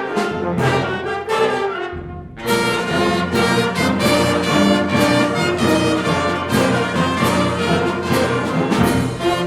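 Concert band playing, with brass to the fore. The sound thins out briefly about two seconds in, then the full band comes back in with loud, accented chords.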